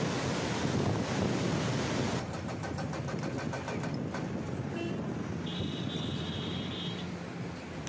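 Gusting wind and rushing river noise give way, about two seconds in, to the steady rumble of a car driving along the mountain road. A high steady tone sounds twice in the second half.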